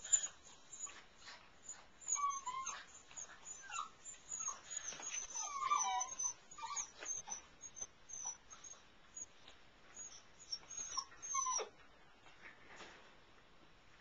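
Young Airedale terrier puppies whining and squeaking in many short, high-pitched cries, with scattered small clicks; the cries die down near the end.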